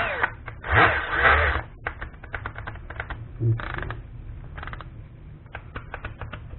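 Irregular run of plastic clicks from the detents of a Bosch GSB 1080-2-Li cordless drill/driver's torque-clutch and mode-selector collars as they are turned by hand. There are two short louder bursts among the clicks, one about a second in and a smaller one near three and a half seconds.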